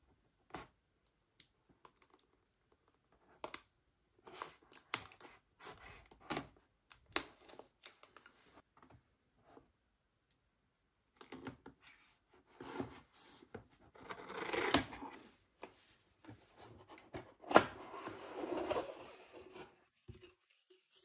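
Close-up handling of a keyboard's box and packaging during unboxing: scattered taps and clicks, two of them sharp and loud, among stretches of scraping and rustling, with a short lull partway through.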